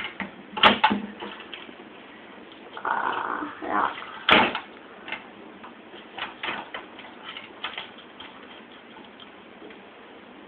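Metal ring pull on a wooden cabinet clacking against its backplate: two sharp clacks about three and a half seconds apart, then a few lighter clicks. A short breathy noise comes between the clacks.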